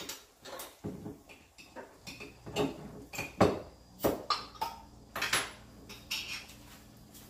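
Kitchenware clinking and knocking off-camera, irregular sharp clinks several times a second that stop about six seconds in: a jar of tomato sauce being got ready to pour into the pan. A faint steady hum runs underneath.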